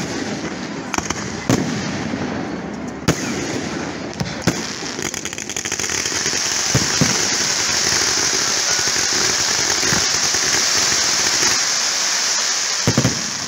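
Fireworks display: several sharp bangs of shells bursting in the first few seconds. From about five seconds in comes a long, loud, steady hissing crackle as a barrage of comets and fountains fires. A couple more bangs come near the end.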